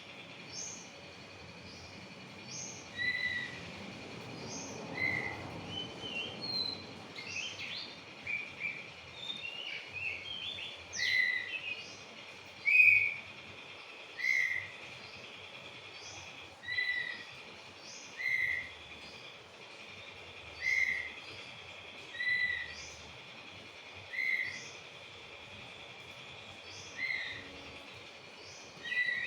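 Oriental magpie-robin (kacer) calling in its cage. It repeats a short call about every two seconds, with a more varied run of notes in the first half. A steady high-pitched drone runs underneath.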